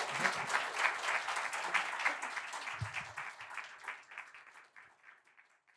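Audience applauding, the clapping dense at first and fading away near the end.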